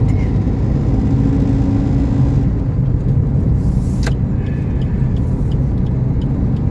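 Steady car engine and road noise inside the cabin of a car driving along, with one short click about four seconds in.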